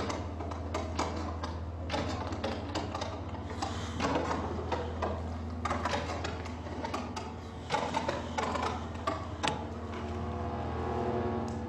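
Plastic bottles, lids and sheeting crackling and clicking irregularly as they are handled, over a steady low hum. Sustained musical tones start to come in near the end.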